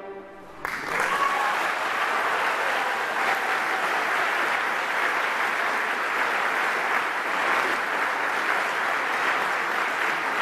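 Concert-hall audience applauding, breaking out suddenly about a second in as the last saxophone chord dies away, then holding steady and dense.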